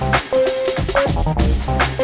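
Electronic background music with a steady drum beat.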